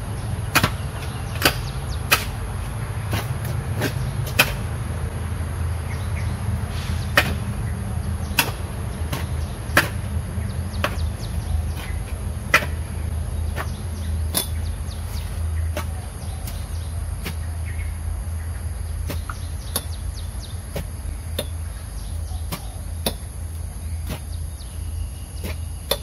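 Hand hoe (cangkul) chopping into the earth of a ditch: sharp strikes at irregular intervals, roughly one or two a second, some louder than others, over a steady low rumble.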